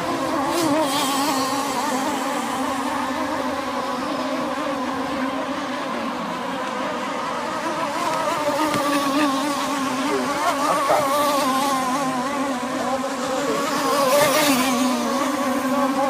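Several gas-powered radio-controlled catamaran racing boats running flat out, their small two-stroke engines making an overlapping high buzz that wavers in pitch as they race around the course. It swells briefly near the end as a boat passes closer.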